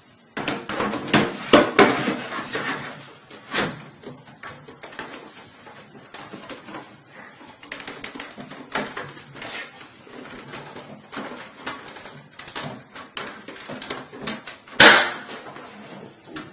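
Irregular clicks, scrapes and knocks of an IDE DVD drive being handled and slid into a desktop computer case's drive bay, with one loud sharp knock near the end.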